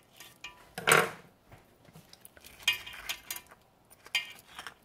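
A knife clinking and knocking against avocado skin and a metal salad bowl as avocado pieces are cut and dropped in: a few separate knocks and clinks, the loudest about a second in, two of them ringing briefly.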